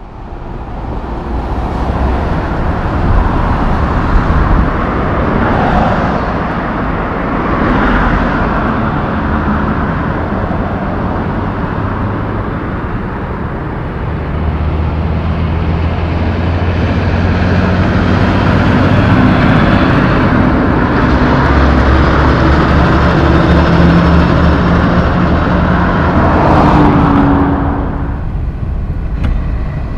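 Kenworth semi trucks and other heavy diesel traffic passing on a highway: a steady low engine drone with tyre noise, several vehicles going by one after another. It fades in at the start.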